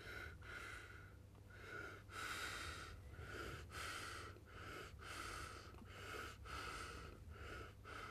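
Faint, quick audible breathing of an elderly man, short hissy breaths coming about twice a second.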